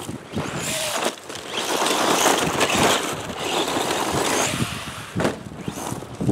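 Traxxas Slash 4x4 VXL RC short-course truck driving hard on a loose dirt-and-gravel track: its brushless Velineon motor whines as the throttle comes on and off, with the tyres scrabbling and spraying gravel. The sound swells and fades several times as the truck passes.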